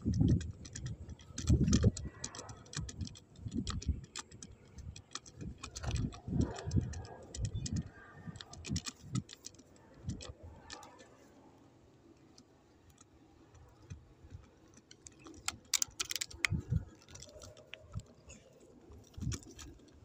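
Handling and movement noise from a hunter on foot carrying an airgun with a phone filming through its scope: irregular dull thumps of steps and bumps with light scattered clicks, going quieter for a few seconds midway, then a short cluster of sharper clicks.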